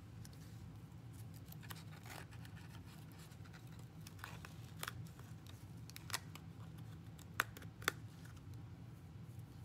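Light handling sounds of a cardboard loom and yarn as the woven loops are slipped off its notched edge: soft rustling with scattered small clicks, two sharper ones about seven and a half and eight seconds in, over a low steady hum.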